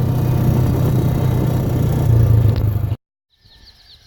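Motor vehicle engine running steadily with a strong low hum and loud rumbling noise, heard from on board; it cuts off abruptly about three seconds in, after which faint birds chirp.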